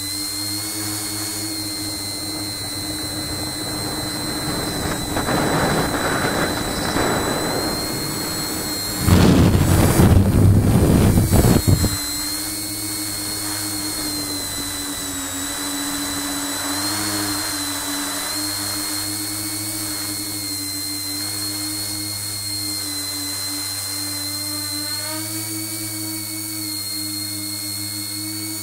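Tricopter's electric motors spinning Graupner 9x5 tri-blade propellers, running steadily with a high whine. A louder rushing noise comes twice, briefly about five seconds in and strongest from about nine to twelve seconds in.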